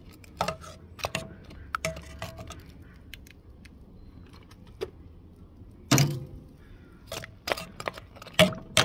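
Metal tongs clacking against a steel sauce pot: about a dozen sharp, irregular clacks, some with a short metallic ring, the loudest about six seconds in and near the end, as chicken pieces are dipped in barbecue sauce.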